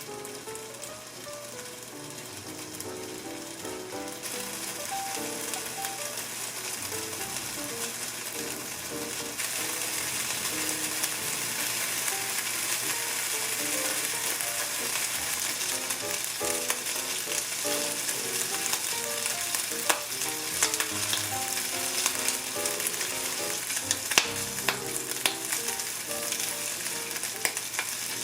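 Food sizzling in a hot frying pan, the sizzle growing louder twice early on, with occasional sharp clicks of a utensil against the pan.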